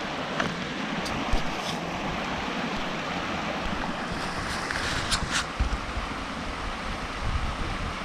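Steady rush of flowing river water, with wind buffeting the microphone as a low rumble and a few faint clicks.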